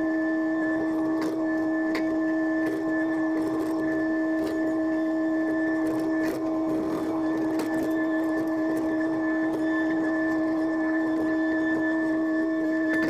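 A John Deere 50G compact excavator's diesel engine and hydraulic pump running at steady working speed, heard from inside the closed cab as a constant whine, with occasional clicks and knocks as the bucket digs.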